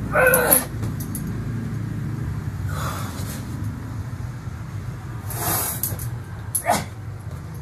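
Heavy exhales and the jangle of a steel chain handled during chained burpees, in a few short bursts, over a steady low hum.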